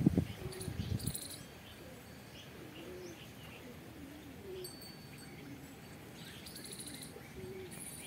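Doves cooing softly, a series of low rounded coos, with a few short high chirps from other birds. A low rumble fades out about a second in.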